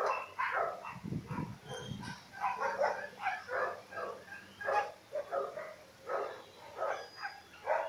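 Animals calling outdoors: a long series of short, irregular calls, about one to two a second.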